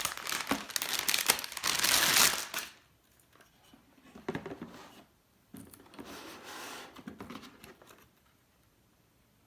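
Motherboard packaging being handled: loud crinkling and rustling for the first couple of seconds, then two quieter, shorter bouts of rustling.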